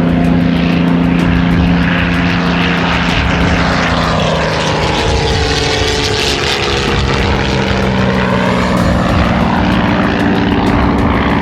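Bell P-39 Airacobra's Allison V-12 engine and propeller running loud and steady at high power; about halfway through its note drops and changes.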